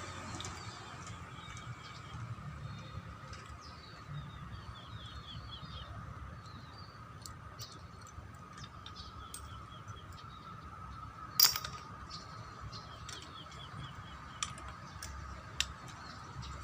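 Birds chirping in short twittering runs, with a faint steady high hum underneath. A few sharp clicks or taps sound over it, the loudest a little after the middle.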